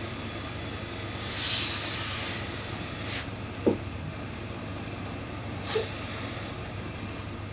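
Hose-fed steam iron giving hissing bursts of steam, one about a second and a half in and another near the end, with a short knock between them. A steady low hum runs underneath.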